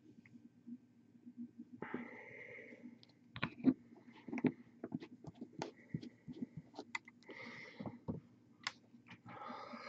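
Small clicks and taps of a hand and paintbrush working on a miniature held close to the microphone, over a steady low hum, with a few short soft hisses.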